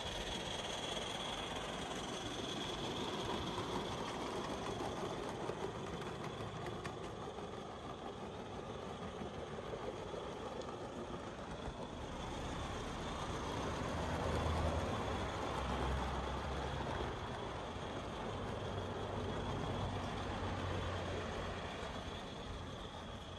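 Garden-scale live-steam locomotive and its wagons running along the track, a steady running noise, with a louder low rumble in the second half.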